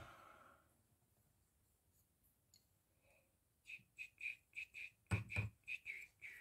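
White plastic tube connector being handled and turned in the hands, giving a run of short high clicks or squeaks, about four a second, that start about halfway through. Two dull knocks come in among the clicks.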